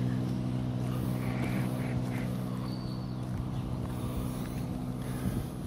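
A steady low engine hum that keeps a constant pitch and slowly grows fainter, with a brief high chirp about three seconds in.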